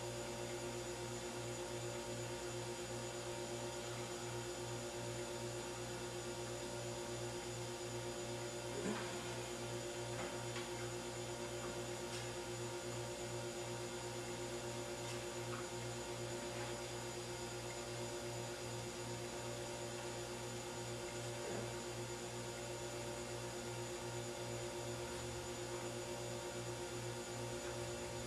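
Steady electrical mains hum made of several constant tones, with a faint click about nine seconds in and another a little past twenty-one seconds.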